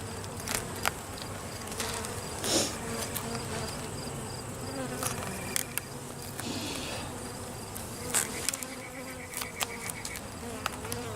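Honey bees buzzing steadily around an open hive, a dense many-bee hum, with occasional sharp clicks and knocks scattered through it.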